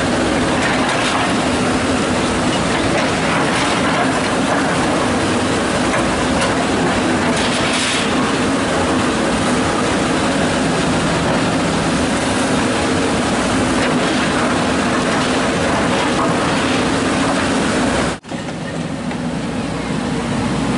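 Kobelco SK130 hydraulic excavator working close up: its diesel engine runs steadily under load with hydraulic noise as the bucket scoops mud and water. The sound drops out briefly near the end and then carries on.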